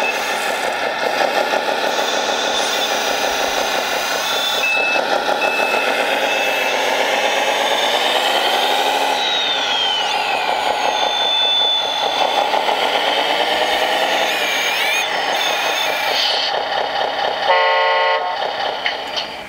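Simulated diesel engine sound from a 1/14-scale RC wheel loader's sound module, running with the revs rising and falling several times as it works. A few short beeps come through, and a loud horn toot sounds near the end.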